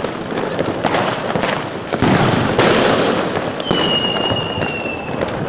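Private New Year fireworks and firecrackers going off all around in a dense, continuous crackle of bangs and pops. A high whistle, slightly falling in pitch, sounds over them from about two-thirds of the way in until near the end.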